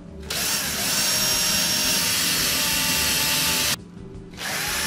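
Cordless drill pilot-drilling through a paper template into a door frame: it runs steadily for about three and a half seconds, stops, and starts again for the next hole near the end.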